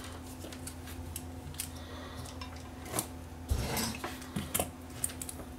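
Small clicks, clinks and taps of tools being handled on a workbench as a soldering iron and a spool of solder are picked up and moved about. A louder knock and rustle comes about three and a half seconds in.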